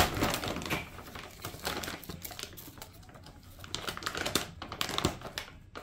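Plastic bag of seed-starting mix crinkling and crackling as it is handled and pulled open: an irregular run of sharp little clicks.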